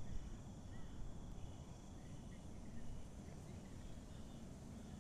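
Night insects such as crickets trilling steadily at a high pitch, with a few faint short chirps and a continuous low rumble underneath.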